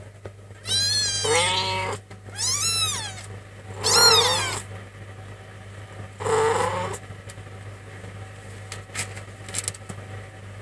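Nursing kittens meowing while they jostle for teats at their mother: about five high, wavering meows in the first seven seconds, then only faint clicks.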